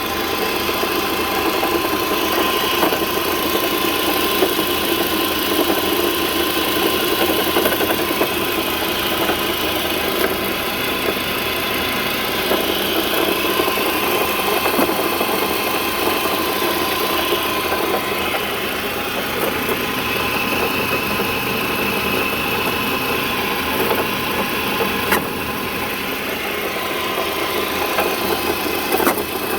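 Car engine idling with a steady whine and a knock-like noise that sounds like engine knock but comes from the failing alternator driven by the auxiliary belt.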